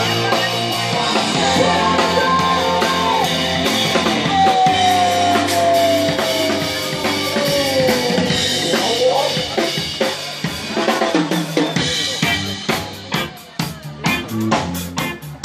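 Live rock band playing amplified: held notes with one long note sliding slowly down, then the drum kit comes to the fore with a steady beat of sharp hits in the second half.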